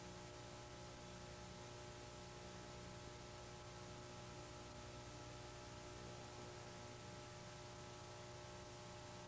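Near silence: faint steady hiss with a low electrical hum, the noise floor of an old videotape transfer with no program sound.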